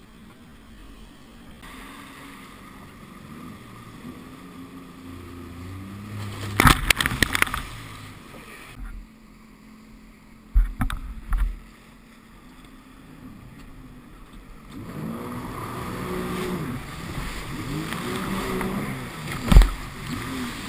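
Sea-Doo RXT 260iS jet ski engine running, its pitch rising and falling as the throttle is worked. Loud thumps and splashing as the hull slams over waves: a cluster about six to seven seconds in, more around ten to eleven seconds, and one sharp hit near the end.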